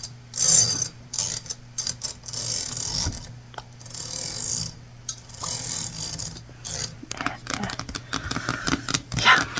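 Scratching and rubbing against small objects in several bursts, then a quick run of clicks and taps near the end.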